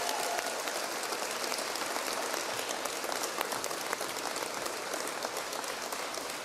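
Crowd applauding: many hands clapping in a dense, even patter that eases off slightly toward the end.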